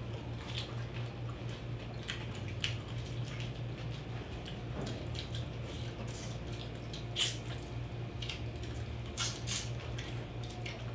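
Wet chewing and lip-smacking of people eating roast pig by hand, short irregular clicks and smacks, one a little louder about seven seconds in, over a steady low hum.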